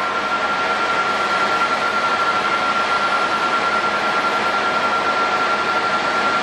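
Jet airliner engines running steadily: an even rush of noise with a steady high whine held throughout.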